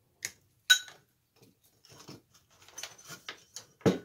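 Small screwdriver clinking against a brass lamp socket and its terminal screw: a sharp metallic clink about a second in, light clicks and handling noises, and a louder dull knock near the end.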